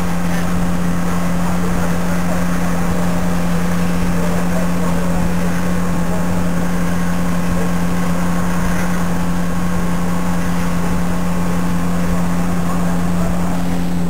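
Steady low mechanical drone from an engine running at constant speed, with an unchanging pitch.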